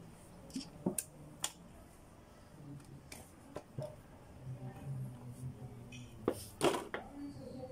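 Scattered metallic clicks and light knocks of a hand tool and loose parts being worked inside the open case of a manual transmission, with two sharper knocks a little after six seconds.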